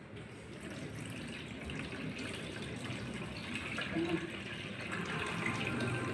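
Liquid trickling and splashing as a cooled boiled bran mixture is worked through a cloth strainer into a basin.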